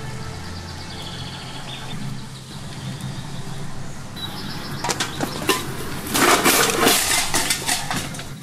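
Birds chirping, then from about five seconds in a burst of irregular clattering and cracking of empty cans and litter being stepped through, loudest a little after six seconds in.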